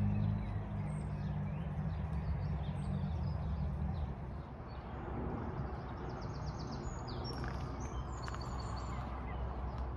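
Outdoor garden ambience: a steady low hum that drops lower and softer about four seconds in, with faint bird chirps and a short trill above it.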